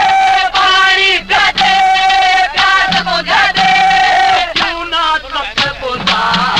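Haryanvi ragni folk song: a male voice singing a wavering melody over instrumental accompaniment.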